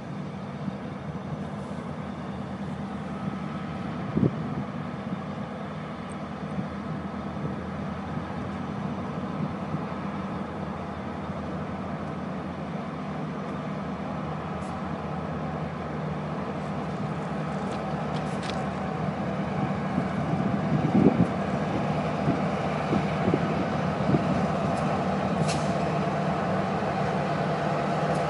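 Two Norfolk Southern GP38-2 diesel locomotives, EMD V16 two-stroke engines, running as they approach with a freight train, their drone growing steadily louder. Gusts of wind buffet the microphone with a few low thumps.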